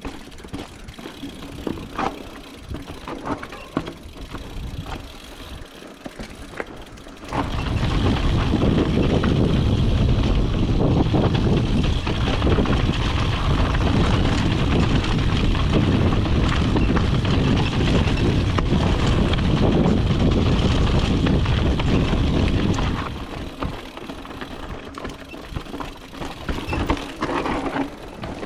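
Mountain bike being ridden down a dirt trail: tyres rolling over the ground with scattered knocks and rattles from the bike. About a quarter of the way in the sound jumps to a loud continuous low rumble that holds for some fifteen seconds before dropping back to the lighter rolling and rattling.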